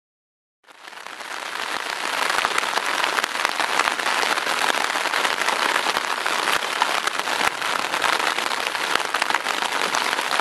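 Rain falling on a nylon tent, heard from inside: a steady hiss of many small drop hits. It fades in within the first second or two after a brief silence.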